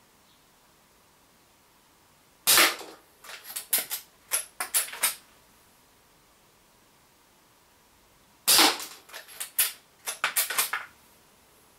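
Umarex Legends Cowboy lever-action CO2 rifle fired twice, about six seconds apart. Each shot is a sharp crack followed by a quick run of clicks and clacks as the lever is worked to eject the spent shell and chamber the next round.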